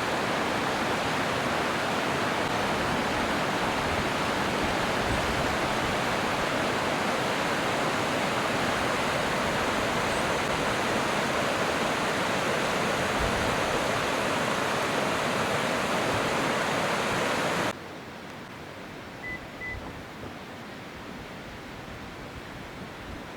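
Loud, steady rushing of a waterfall's falling water, cut off abruptly about 18 seconds in and replaced by a much quieter, even outdoor hiss.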